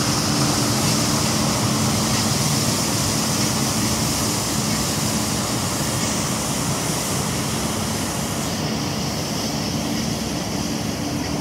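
Schwarze A7 Tornado regenerative-air street sweeper running as it sweeps: a steady hum from the engine and blower under a loud hiss of air and brushes, fading slightly as it pulls away.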